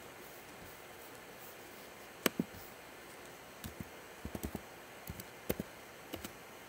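Light clicks and taps in small scattered groups over quiet room tone.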